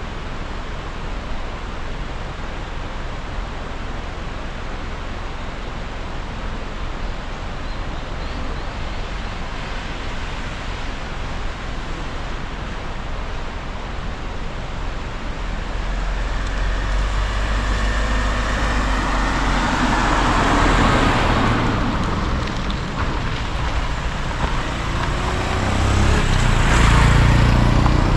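A car driving on a road, with steady road and engine noise that grows louder in the second half and swells twice.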